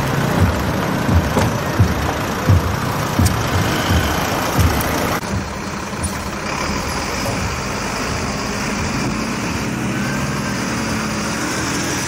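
Road and vehicle noise with irregular low thumps. About five seconds in the sound cuts to a fire engine's heavy engine idling with a steady low hum.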